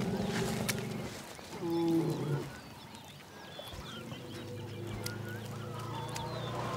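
Elephant giving a short honking call about two seconds in, rising in pitch at its end, over low steady tones, with faint high chirps.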